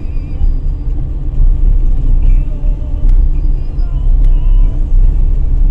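Steady low rumble of a car driving slowly along a city street: road and engine noise, with faint high warbling tones over it.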